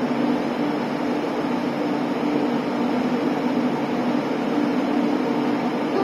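A JR Kyushu 813 series electric train standing at the platform, giving off a steady hum over the station's background noise.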